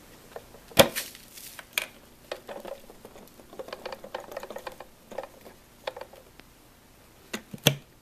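Plastic dirt cup of a Kenmore Intuition bagless upright vacuum being emptied by hand: a sharp click as the bottom lid is released about a second in, then small clicks and light rattling and rustling as the dust and hair are shaken out, and two snaps near the end as the lid is pushed shut.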